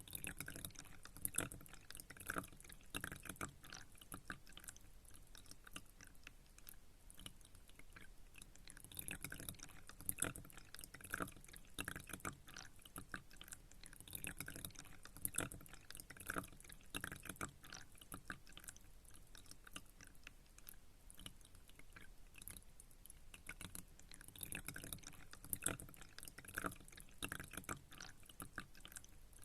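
Pond water trickling and dripping: a faint, irregular patter of small drips and splashes, with a few louder drops.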